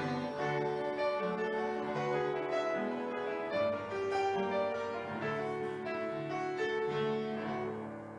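Piano playing a slow melody over chords, ending on a last chord that fades away near the end.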